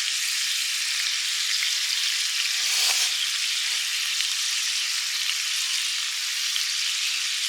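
Steady sizzle of meat frying in a pan over a campfire, with a brief louder flare about three seconds in.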